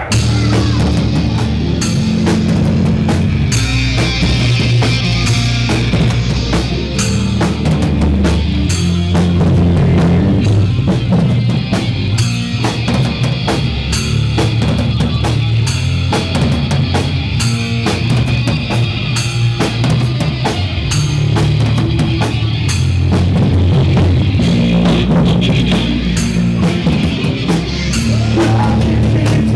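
Rock music played by a band: a drum kit with bass drum and cymbals keeping a steady beat over a bass line, loud throughout.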